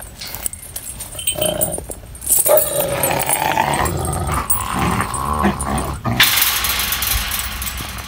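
A she-wolf and a female Kangal dog growling and snarling at each other in a confrontation, with a few short pitched cries, ending in about two seconds of harsh noise.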